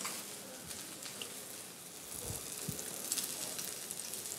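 Gentle, steady sizzle of a John Dory fillet frying skin-side down in olive oil over moderate heat, with a couple of faint knocks about halfway through.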